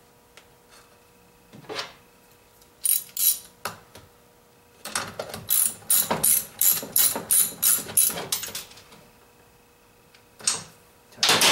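Ratchet socket wrench clicking as the spark plug is tightened into a McCulloch Mac 3516 chainsaw engine: a run of about a dozen sharp clicks, about three a second, in the middle, with a few metal knocks before and after.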